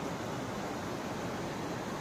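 Steady rushing of flowing water, an even noise with no breaks.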